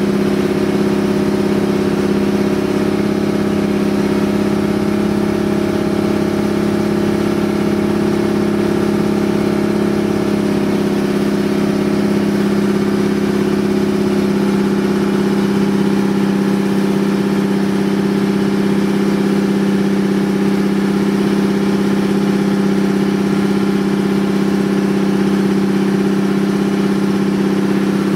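Outrigger boat's engine running steadily, a constant drone at one even pitch.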